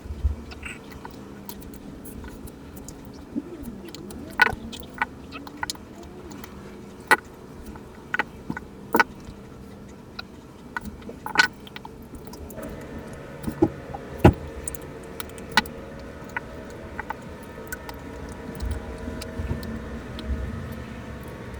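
Small metal watch parts and tools clicking and clinking at irregular intervals as a Casio analog wristwatch is taken apart.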